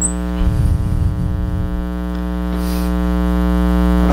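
Steady electrical mains hum, with a brief low rumble from about half a second to two seconds in.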